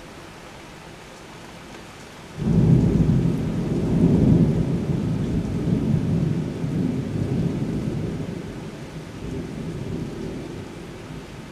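Steady rain, then about two seconds in a sudden loud peal of thunder that rumbles on for several seconds and slowly fades near the end.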